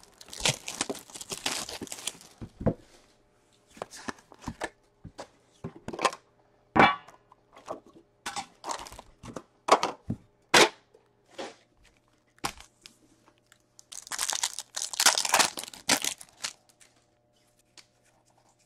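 Plastic wrapping torn and crinkled off a metal tin of hockey cards. Scattered clicks and taps follow as the tin lid is lifted and the foil card packs are handled and set down. Near the end a foil pack is torn open with a burst of crinkling.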